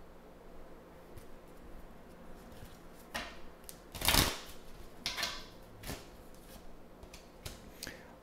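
Tarot cards being handled and laid out on a table: scattered soft slaps and rustles of card stock, the loudest a brief flurry about four seconds in.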